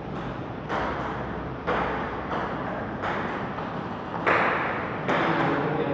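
Table tennis rally: the celluloid ball clicks sharply off bats and table about once a second, at an uneven pace, each hit trailing a short echo in the hall.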